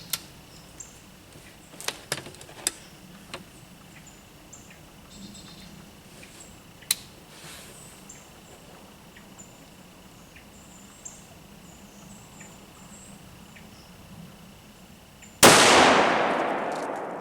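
A single rifle shot from a Winchester Model 70 lightweight in .270 Winchester firing a 150-grain Core-Lokt factory load, coming about fifteen seconds in, its report trailing off over the next two seconds. Before it, a few faint clicks.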